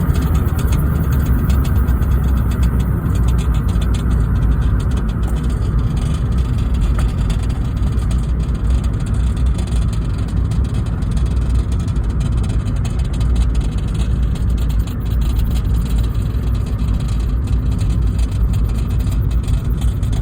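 Honda Fit's four-cylinder engine running steadily as the car drives over rough ground, with a heavy low rumble and light rattling clicks throughout.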